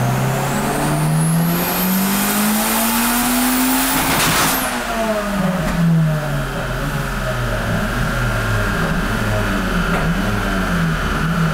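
Turbocharged Honda Civic VTi four-cylinder engine on a full-throttle pull, revs climbing for about four seconds with a high whine rising with them, then the throttle closes and the revs fall away.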